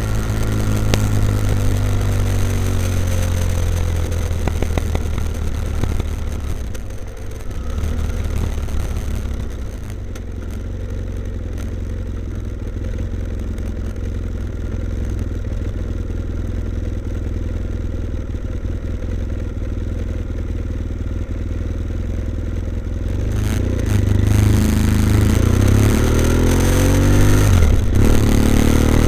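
BMW F800ST parallel-twin engine through a Blue Flame twin-port exhaust with its baffles in. The engine note falls as the bike slows, stays low and quieter through the middle, then rises and grows louder near the end as the bike accelerates.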